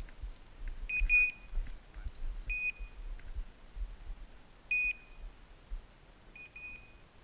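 Short, high electronic beeps from a small device, some single and some in pairs, every second or two, over a low rumble on the microphone.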